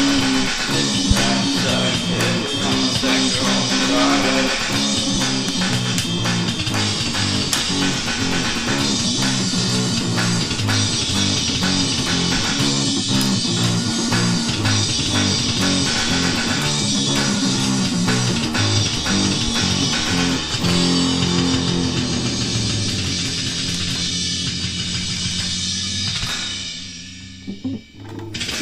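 Rock music with distorted guitar, bass and drums, fading out near the end.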